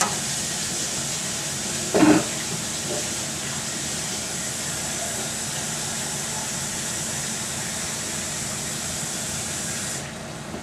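Flour and pork chop drippings sizzling steadily in a stainless steel skillet as a roux cooks for gravy, with a brief louder sound about two seconds in. The sizzle drops off suddenly near the end.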